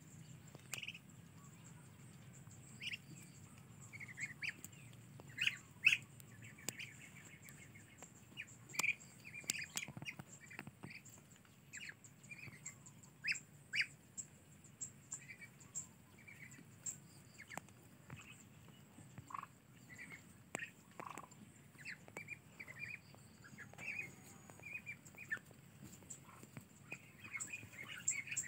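A flock of hungry young Muscovy ducks calling in many short, high peeps and squawks, scattered irregularly and overlapping.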